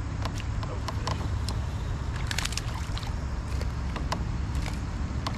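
Wind rumbling on the microphone, with scattered sharp clicks and small splashes, clustered a little after two seconds in, as a small fish is reeled to the kayak and lifted from the water.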